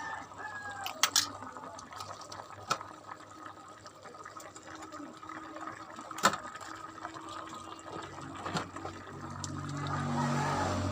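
Liquid sounds with a few sharp clicks, growing louder over the last couple of seconds.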